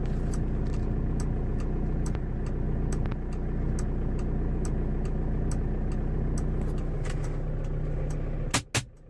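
Car engine idling, heard from inside the cabin as a steady low hum, with light ticks at a regular pace. Near the end come two sharp clicks, and the hum cuts out for a moment.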